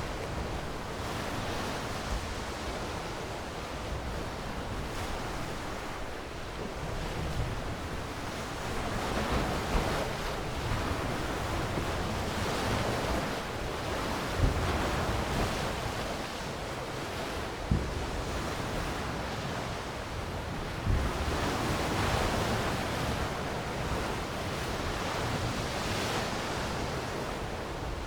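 Ocean surf: waves breaking and washing in, the rush swelling and easing every several seconds. A few brief low bumps stand out near the middle.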